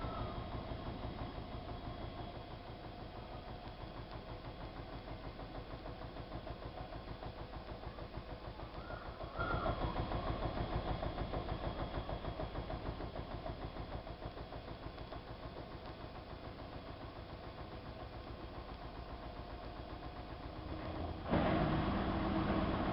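Siemens iQ WIQ1430 front-loading washing machine in the wash phase of a 90 °C boil wash: the motor turns the drum and the laundry and water tumble in a steady rhythm. A short rising motor whine comes just before the level steps up at about nine seconds, and it steps up again near the end.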